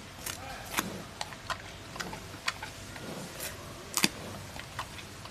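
Giant panda biting and chewing bamboo stalks: irregular sharp cracks and crunches of splintering bamboo. The loudest is a double crack about four seconds in.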